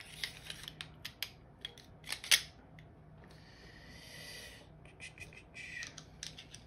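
Small clicks and taps of Hi-Capa gas blowback airsoft pistol parts being handled and fitted together during reassembly. The loudest click comes about two and a half seconds in, with a short stretch of rustling in the middle.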